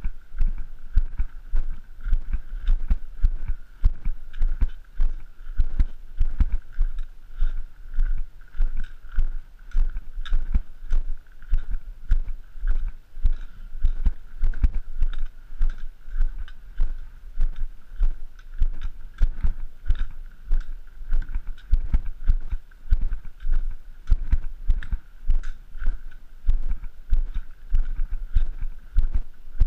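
Footsteps of a hiker walking on a gravel trail, heard as regular low thuds about twice a second through a body-worn camera.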